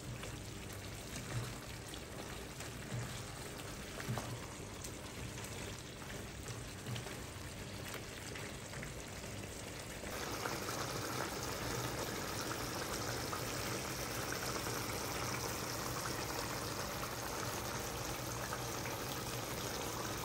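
Chicken and chickpeas in tomato sauce simmering and sizzling in a frying pan. In the first half a wooden spatula stirs them, with a few light knocks. About halfway through it changes to a louder, steadier bubbling sizzle.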